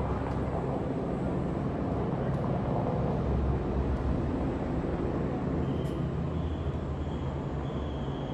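Steady low outdoor rumble. A faint high tone comes in over the last few seconds.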